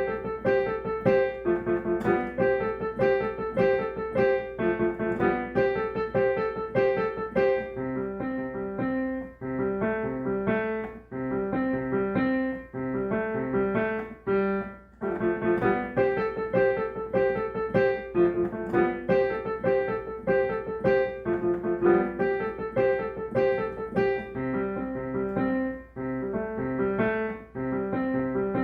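Solo piano playing a lively piece in quick, evenly repeated notes, over a faint steady low hum.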